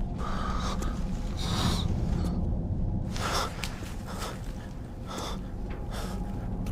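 A man gasping for breath, a series of short ragged breaths, over a low steady rumble.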